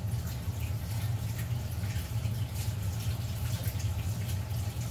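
Kitchen tap running in a steady rush, water splashing as hands are rinsed clean under it.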